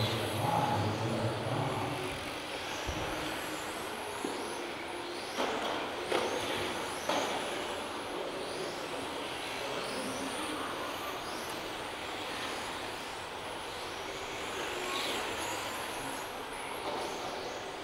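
Electric 1:10 touring cars with 17.5-turn brushless motors racing, their high whine rising and falling as they accelerate and brake. A few sharp knocks come between about four and seven seconds in.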